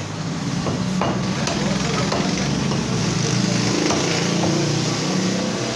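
Meat cleaver chopping goat meat on a wooden log chopping block, in a few irregularly spaced chops. A steady low hum runs underneath.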